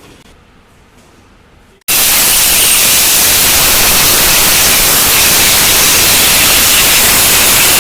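A very loud, steady hiss like rushing air, starting abruptly about two seconds in.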